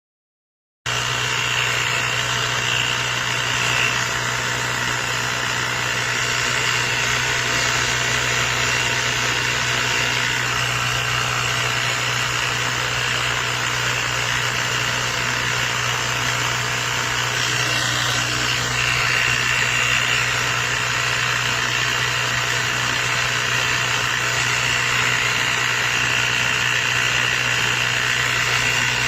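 CYCPLUS 150 PSI battery-powered mini air compressor running steadily, its small motor and piston pump giving a constant buzzing hum with a thin high whine. It starts abruptly just under a second in.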